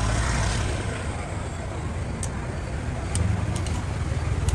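Street ambience dominated by a steady low rumble of road traffic, with a few short sharp clicks.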